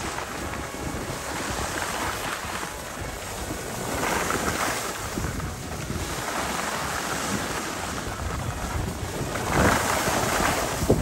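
Wind rushing over the microphone and skis scraping on packed snow while skiing downhill, swelling twice as the skier turns.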